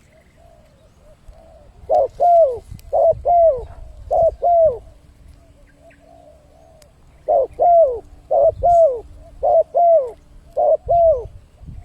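Spotted dove (tekukur) cooing as a lure call to attract wild doves. It gives two loud runs of repeated coos, each note sliding down in pitch, the first about two seconds in and the second near the middle, with fainter coos between them.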